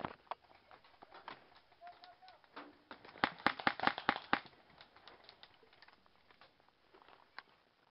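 Airsoft gunfire in a skirmish: a rapid, uneven run of sharp clicks lasting about a second, starting about three seconds in, with scattered lighter clicks and brush rustling around it.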